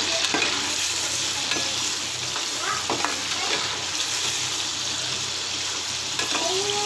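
Soya chunks frying in hot oil over a high flame: a steady sizzle, with a few clicks and scrapes as they are stirred in the pan.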